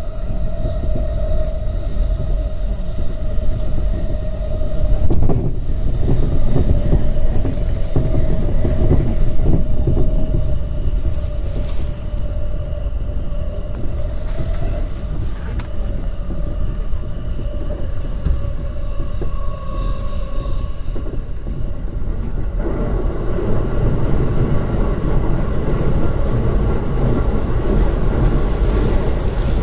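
Electric commuter train running at speed, heard from an unused cab at the coupling between two units: a continuous rumble of wheels on rail with a steady whine. The whine fades about two-thirds of the way through, and the running noise then grows broader and louder.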